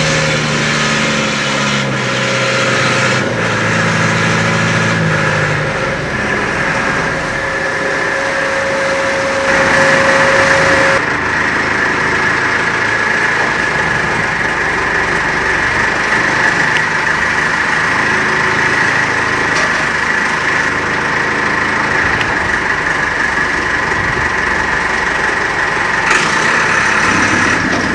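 Fishing boat's engine running steadily under a constant rush of noise, with a steady high whine starting about ten seconds in.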